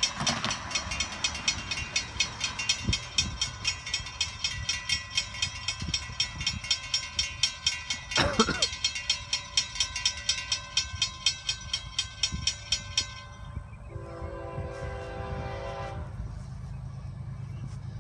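A railroad crossing warning bell rings rapidly, about three strikes a second, and stops about thirteen seconds in, with a brief sweeping sound near the middle. Then an approaching Florida East Coast freight's locomotive horn sounds one distant blast of about two seconds, and the low rumble of the diesel locomotives begins to build.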